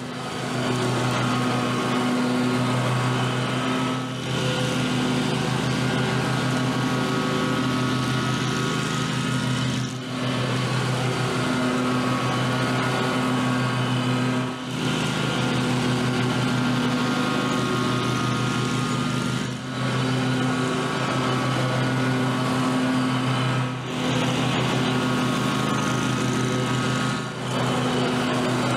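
Zero-turn riding lawn mower running steadily while cutting grass, a constant engine hum under the hiss of the blades, with short dips in level every few seconds.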